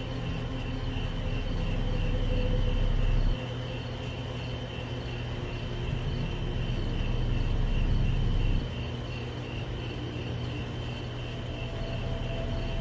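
Crickets chirping steadily at night, under a low rumble that swells twice and each time cuts off suddenly.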